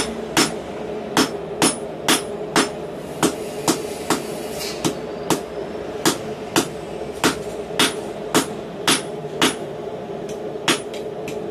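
Hand hammer striking a red-hot doubled steel bar on a steel anvil block while shaping a forged knot: steady blows, about two a second, with a short pause about halfway through.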